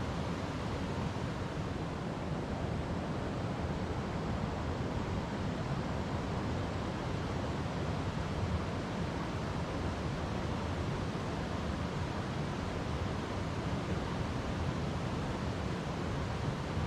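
A river flowing over rocks: a steady, deep rush of water with no breaks or single splashes standing out.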